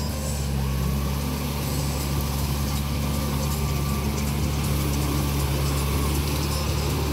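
Yanmar tractor's diesel engine running steadily at an even speed while working a rotary tiller through mud.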